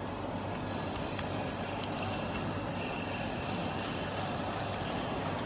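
Small screwdriver turning out a screw from a thermal inkjet printer's metal housing: a few faint, light metallic clicks over a steady background hum.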